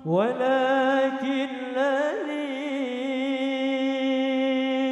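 A man's voice singing sholawat. It slides up into one long held note and decorates it with wavering melismatic turns, holding it for several seconds.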